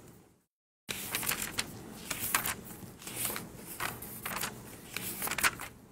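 Paper rustling: a string of short, irregular rustles as a book's pages and loose sheets are handled. The sound drops out completely for about half a second near the start.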